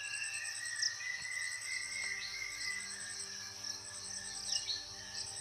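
Insects calling: a steady high buzz, with a pulsed high trill that comes in short bouts about every second and a half. A few brief downward chirps come through over it.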